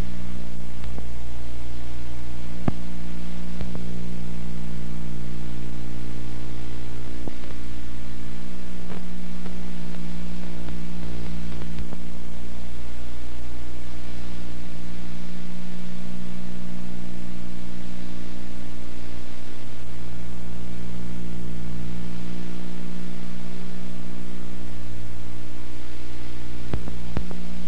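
Steady electrical hum with hiss, unchanging in pitch and level, with a few faint clicks.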